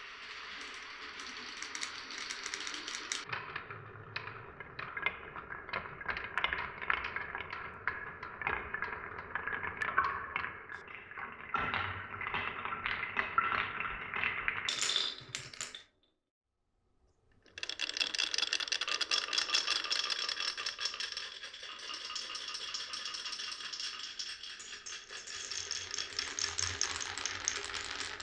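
Marbles rolling and clattering along a marble run's wooden rails and clear plastic pipes: a dense stream of clicks and rattles. It cuts out suddenly about sixteen seconds in and comes back a second and a half later.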